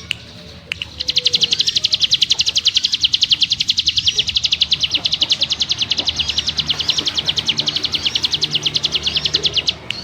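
Ciblek gunung (a prinia) giving its 'ngebrem' rattle. It is a dense, high trill of rapid repeated notes, about nine a second, that starts about a second in and runs for almost nine seconds. It follows a couple of short rising chirps at the start.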